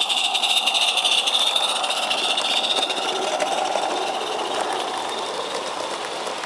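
16mm-scale live-steam locomotive passing close by with its train: rapid steam beats and hiss together with the rattle of carriage wheels on the track. The steam hiss is loudest in the first couple of seconds, then the sound fades slowly as the carriages go by.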